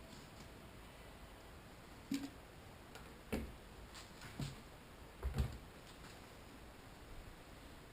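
A handful of light clicks and knocks at irregular spacing, several in the middle of the stretch, over a faint steady background hum.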